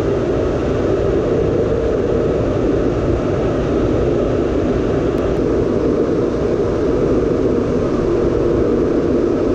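Steady in-flight cabin noise inside a KC-135 Stratotanker: an even rush of engines and airflow with a low drone, unchanging throughout.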